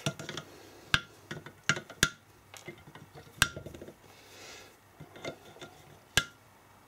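Scattered sharp metallic clinks and taps, about seven at irregular intervals, some with a short ring: loose screws and a hand tool knocking against a BMW 180A alternator's metal housing and the workbench while it is taken apart.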